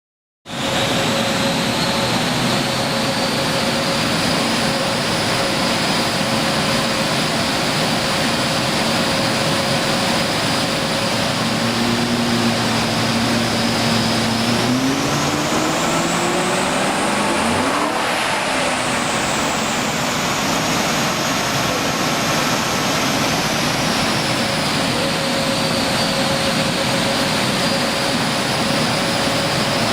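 FPV BFII Super Pursuit's 5.4-litre Boss V8 running on a chassis dyno, loud and continuous from an abrupt start. Its pitch climbs to a peak a little past halfway, then winds back down over several seconds.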